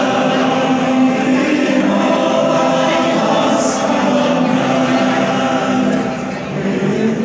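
A men's chorus singing a national anthem in sustained choral notes, with a brief softening about six seconds in.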